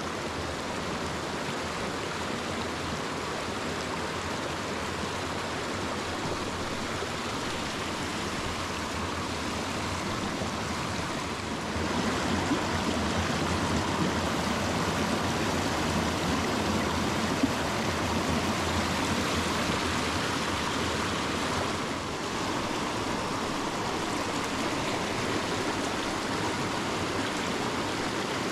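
Small rocky stream rushing steadily over riffles and small cascades, growing louder about twelve seconds in and easing back a little after twenty seconds. One brief click just past the middle.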